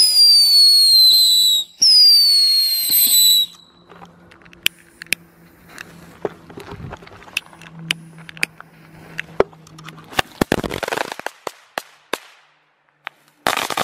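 Small ground fireworks: two falling whistles in a row, then scattered sharp pops and crackles, and a loud crackling burst about ten seconds in, with another short burst near the end.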